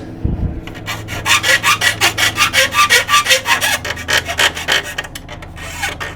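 Hand file rasping back and forth over a freshly sawn edge, about five quick strokes a second, to take the sharp edges off.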